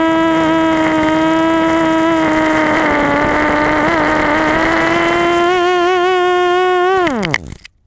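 FPV quadcopter's electric motors and propellers whining at a steady pitch, picked up by its onboard camera. The pitch wavers near the end, then drops quickly and the motors stop as the quad settles into the grass.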